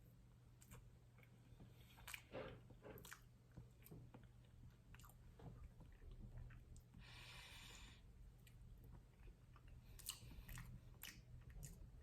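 Faint chewing of soft cake, with small scattered clicks and a brief soft hiss about seven seconds in.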